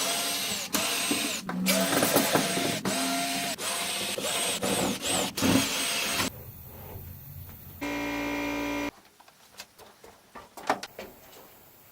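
A power tool run in a string of short trigger pulls for about six seconds, its motor whining up and down with each pull. About eight seconds in comes a steady buzz lasting about a second, followed by a few light clicks.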